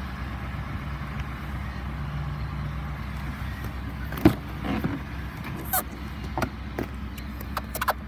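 A hand working the exterior door handle of a 2018 Ford F-150, giving a loud latch click about four seconds in and then several more clicks and knocks, with a quick cluster near the end. A steady low rumble runs underneath.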